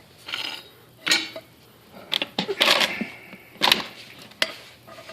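Metal pipe fittings and tools knocking, clinking and scraping as they are handled, in a run of separate sharp knocks with a longer scrape about two and a half seconds in.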